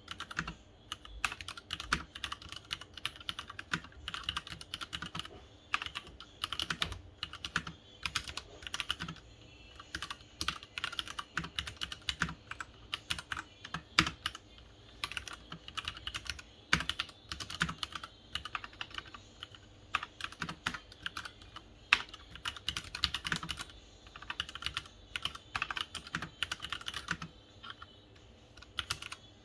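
Typing on a Leopold FC900R mechanical keyboard with Cherry MX Red linear switches: fast runs of keystrokes broken by short pauses.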